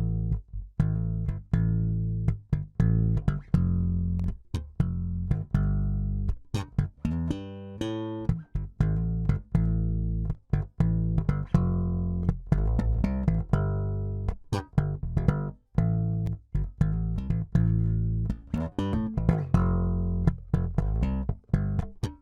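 Electric bass guitar playing a continuous line of plucked notes with a strong low end, pausing briefly about a third of the way in.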